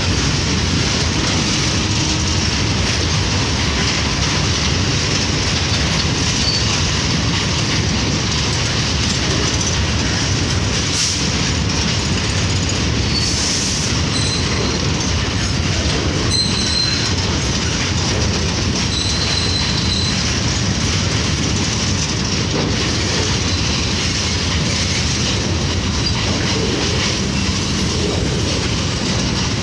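Empty BCNA covered freight wagons rolling past on the rails: a steady clatter of wheels over the track, with brief high wheel squeals now and then.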